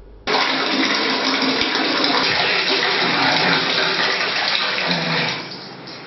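Water running hard from a wall tap into a plastic bucket. It starts abruptly about a quarter second in and dies down near the end.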